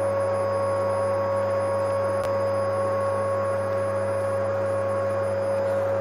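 Vacuum cleaner motor running steadily, a constant whine over a rush of air.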